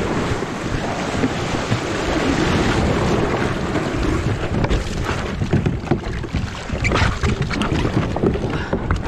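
Waves washing and foaming around a plastic Hobie kayak as it is launched through the shore break, with wind buffeting the microphone. From about halfway, water slaps and knocks against the hull come in quick succession as the paddler gets in.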